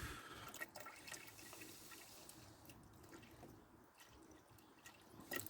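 Faint trickle of water being poured into a car's coolant expansion tank to top up the level, with a few light drips and ticks.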